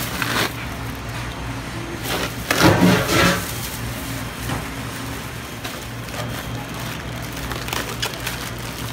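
Plastic bag liner crinkling and rustling as whole fish are lifted out of ice, over a steady low hum of kitchen equipment. A louder burst of handling noise comes about two and a half seconds in.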